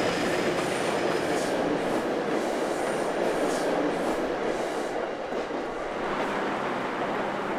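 Passenger train passing on the tracks: a steady rumble and rattle of the cars, easing off about five seconds in.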